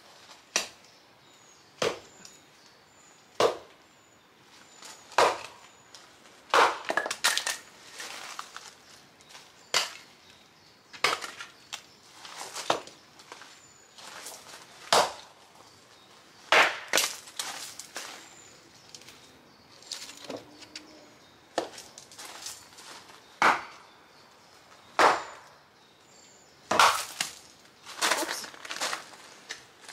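Hatchet chopping a small log on a wooden chopping block: sharp woody strikes about every one and a half to two seconds, a few followed by a quick run of smaller knocks as the wood splits.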